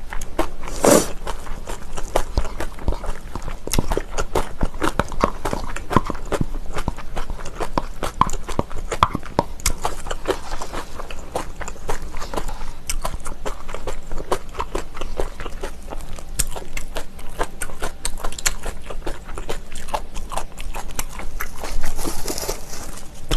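Close-miked eating: chewing and mouth sounds with many small clicks and smacks, as kimchi, rice and seasoned laver are eaten with salted squid.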